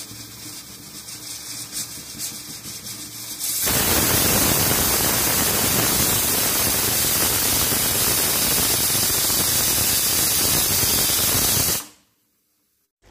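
Aluminium stovetop pressure cooker whistling. A fainter hiss for the first few seconds gives way to a loud, steady hiss of steam escaping past the weight valve for about eight seconds, then cuts off suddenly. This is the cooker's single whistle, which marks the tehri as cooked.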